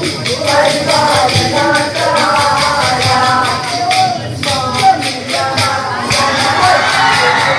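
Kolkali stick dance: short wooden sticks clacking together in a steady rhythm as the dancers strike one another's sticks, under a sung Mappila song. The singing breaks off briefly about halfway through while the clacking goes on.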